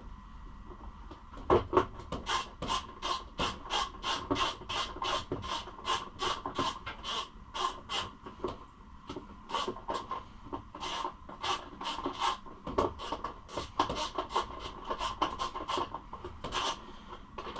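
Hand ratchet wrench being worked back and forth on a bolt, a rasping ratchet stroke about two to three times a second, starting about a second and a half in. The bolt is a stubborn one, giving trouble going in.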